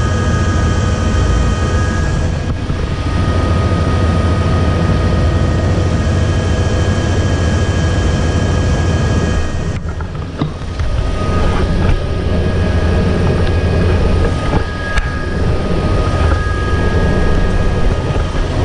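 Helicopter turbine engine and main rotor running on the ground, heard from inside the cabin: a steady low rotor rumble with a high, even turbine whine.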